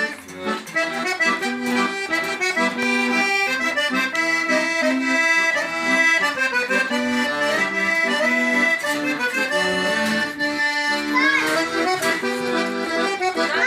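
Accordion playing a tune, a melody over held chords, its notes changing several times a second.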